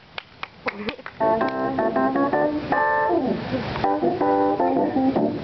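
A few last scattered claps of applause, then about a second in keyboard music with organ-like chords starts up and plays on.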